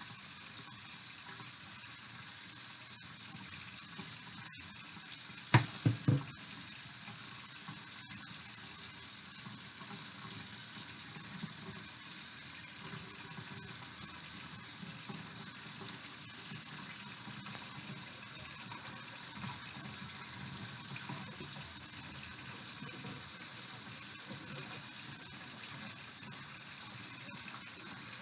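Kitchen tap left running into the sink, a steady even hiss, with a brief cluster of louder knocks about six seconds in.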